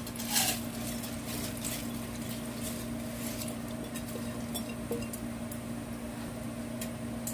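Soaked, damp rice being tipped and pushed by hand out of a clear plastic container into a dry non-stick wok: a soft, wet patter of grains with light ticks, over a steady low hum.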